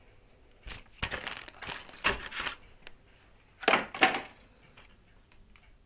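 A paper instruction leaflet and small cardboard boxes being handled on a countertop: a few short spells of rustling with light taps.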